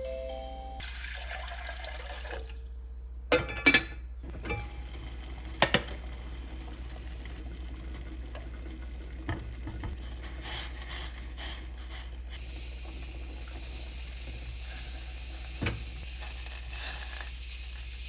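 Kitchen tap running steadily, with a few sharp clinks and knocks of dishes at the sink, the loudest a few seconds in.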